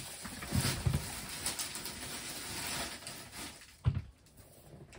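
Faint handling noise: light rustling with a few soft bumps, and one sharp tap about four seconds in.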